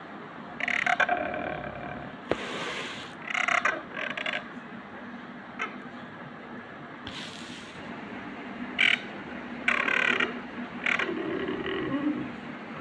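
Felt-tip permanent marker rubbing across a glossy ceramic tile as Arabic letters are drawn. It comes as a string of short bursts, each a second or less, one for each stroke.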